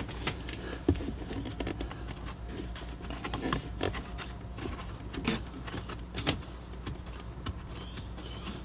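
A screwdriver backing a screw out of the blower fan motor housing under the dashboard: scattered small clicks and scrapes of metal tool on screw and plastic, over a faint steady low hum.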